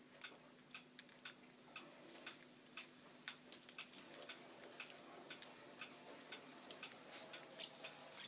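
Pacific parrotlets husking millet seeds with their beaks: faint, irregular small clicks and cracks.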